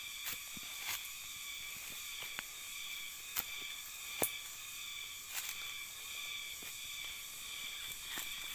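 Steady high-pitched drone of insects in the tropical garden, with scattered crunches and clicks of footsteps on dry leaf litter; two sharper clicks come about a second apart in the middle.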